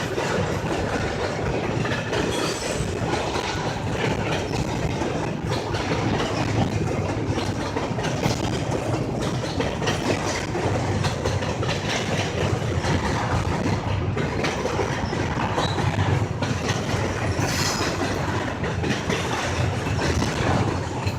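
Freight train cars rolling past, a steady rumble with wheels clicking over rail joints.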